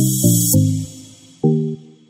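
Background music: short pitched notes struck in a regular pattern, each fading quickly, with a hissing sweep that cuts off about half a second in.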